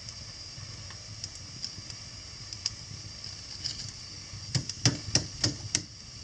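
Wood fire burning in a fireplace: a steady hiss with scattered small crackles, then a quick run of about six sharp pops a little over halfway through.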